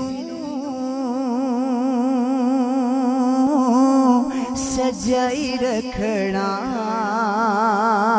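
A male voice singing a naat into a microphone in long drawn-out notes with a wide vibrato.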